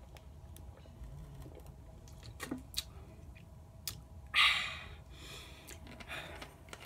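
Someone drinking soda from a plastic bottle: faint gulps and small clicks, then a loud breathy gasp about four seconds in as the bottle comes away from the mouth.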